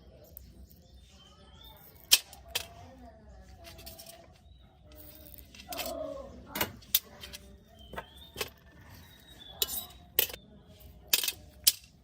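Sharp clicks and taps of small repair tools against small plastic and metal parts, about eight in all, some coming in quick pairs, over faint wavering chirps.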